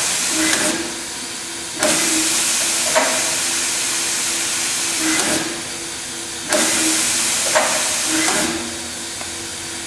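Brother TC-324 drill and tapping center doing automatic tool changes: the tool carousel moves with clunks while air hisses in bursts, one ending under a second in, then one about three and a half seconds long and one about two seconds long. A steady machine hum runs underneath.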